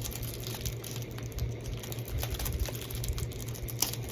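Fingers picking and scratching at the plastic wrap on a Blu-ray case, making faint scattered clicks and rustles over a steady low hum.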